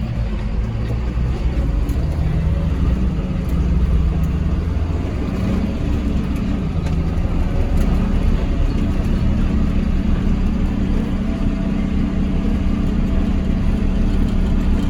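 John Deere farm tractor's diesel engine running steadily while under way, heard from the tractor.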